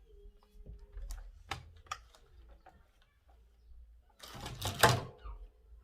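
Plastic parts of a cordless stick vacuum being handled and fitted together: a few sharp clicks, then a louder rattle lasting about a second, four seconds in.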